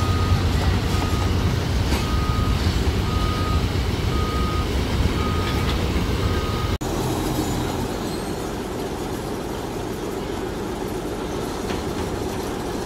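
John Deere 310SL backhoe loader's diesel engine running, with its backup alarm beeping about once a second. About seven seconds in the sound cuts off abruptly, and a quieter, steady machinery rumble follows.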